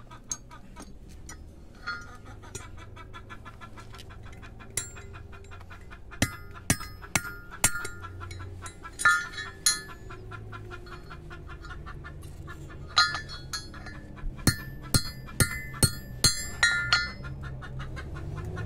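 Hammer striking a thin steel rod on a flat steel plate used as an anvil while a ring or hook is forged in the rod: sharp ringing metal clinks, a few scattered at first, then quick runs of strikes in the second half.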